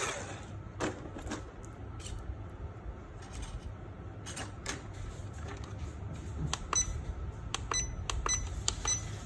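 Scattered clicks and taps of hands handling a plastic 1/14-scale RC truck, with a few short high-pitched chirps near the end.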